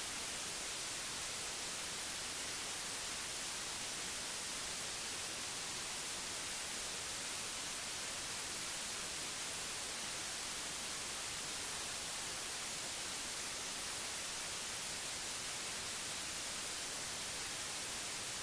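Steady static hiss with no speech, even throughout and strongest in the treble.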